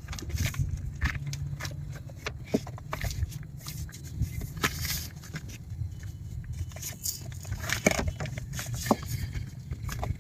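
Rustling, crackling and scraping of a folding reflective windshield sunshade as it is worked by hand against the inside of the windshield and its frame, with many small clicks and a steady low rumble underneath.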